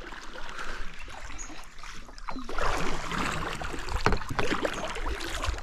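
Canoe paddle strokes in calm river water, splashing and dripping as the canoe is paddled backwards, with a few sharp knocks among them.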